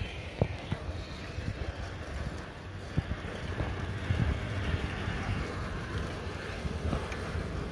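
Wind buffeting the microphone of a phone carried on a moving bicycle, over a steady low rumble, with a few sharp knocks and rattles, the loudest about half a second in and at three seconds.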